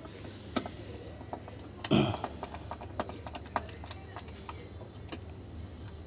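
Scattered clicks and knocks of a hand tool and plastic parts at the pulsator hub inside an LG top-loading washing machine drum, with one louder knock about two seconds in.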